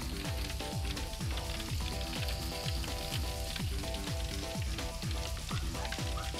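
Chicken katsu cutlet frying in hot oil in a foil pan on a griddle: a steady sizzle and bubbling. Background music with a steady kick-drum beat plays throughout.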